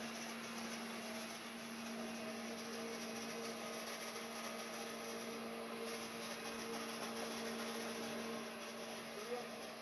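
Vacuum cleaner motor running steadily, a constant hum.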